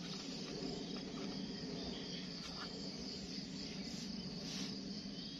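A steady outdoor chorus of insects, with a constant high trill over a low steady background noise.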